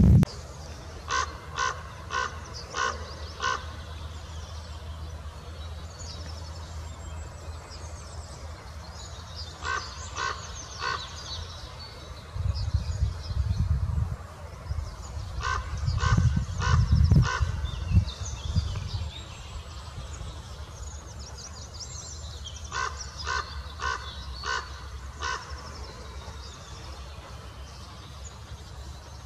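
A large corvid calling in four runs of three to six short harsh notes, each about half a second apart. Small birds chirp faintly in the background, and low rumbles come in twice, about halfway through.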